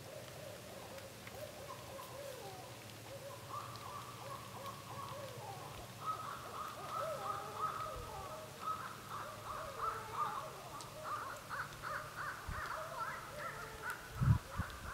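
Several barred owls calling back and forth, answering a hand-cupped owl call. Their overlapping hoots and excited caterwauling grow louder and busier after about six seconds. A few low thumps come near the end.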